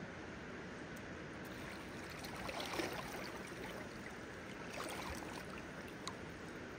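Steady rush of a shallow river, with splashing twice, loudest about three seconds in, as a hooked trout thrashes and is scooped into a landing net.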